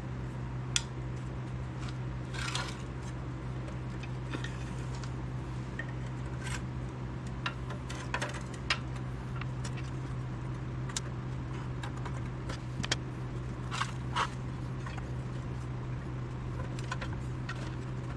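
Scattered metallic clinks and taps of hand tools on a backhoe's torque converter as it is worked loose from the transmission input shaft, over a steady low hum.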